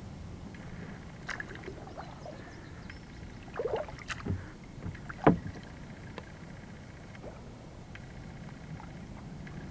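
Kayak on the water: scattered small splashes and knocks from paddling, with one sharp knock a little past halfway.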